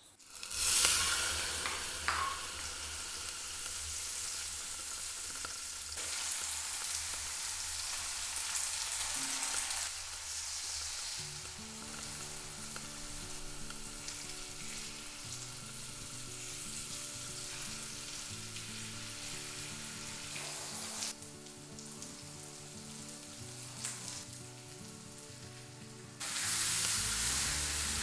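Oil and food sizzling in a wok: shiitake mushrooms and green onion frying, then stir-fried with potatoes and bean curd sticks, the sizzle growing louder near the end as the ingredients are turned. A soft low melody of held notes plays under it from about a third of the way in.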